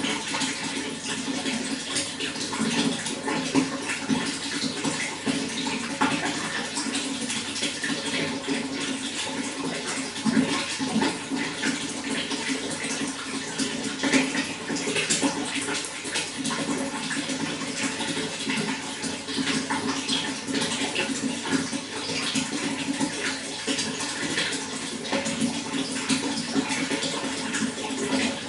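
Running water, a steady continuous flow with dense small splashes throughout.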